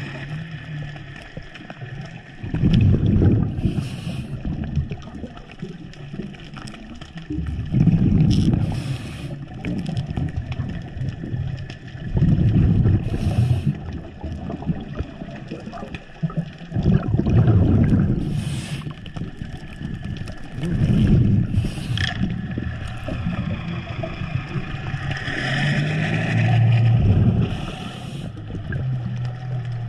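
Muffled underwater water noise around the camera, with swells of rumbling and gurgling bubbles every four or five seconds.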